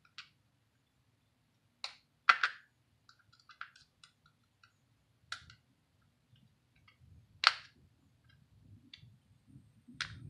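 Sharp, separate clicks and taps as a small screwdriver works the grip screw of a Colt Frontier Scout revolver. The loudest are a quick double click about two seconds in and a single click about seven and a half seconds in, with fainter ticks between.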